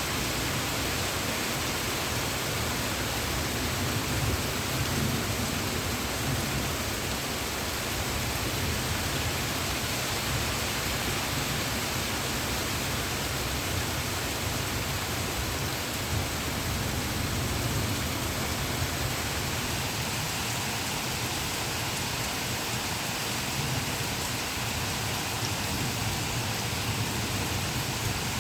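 Heavy rain falling steadily, a constant hiss, with thunder rumbling low underneath, a little stronger about four to six seconds in.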